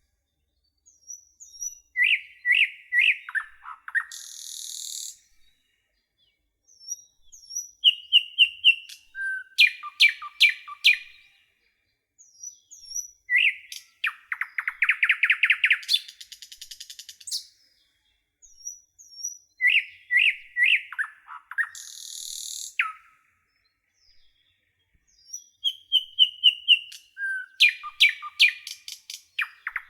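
Songbird singing in short phrases of quick repeated chirps and trills, some with a brief buzzy note. A phrase comes every five or six seconds, with a second or so of silence between them.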